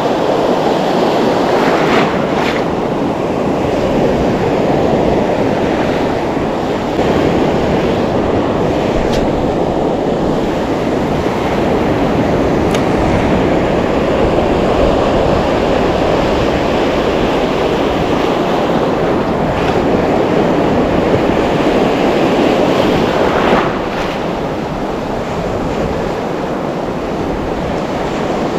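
Surf washing and breaking along a rocky shoreline, a loud steady rush, with wind buffeting the microphone.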